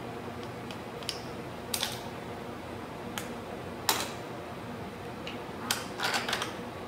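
Scattered sharp clicks and light plastic knocks from lab handling: a pipette and plastic tubes and a bottle being handled and set down on a lab bench, the loudest about four seconds in and a quick cluster near the end, over a steady hum.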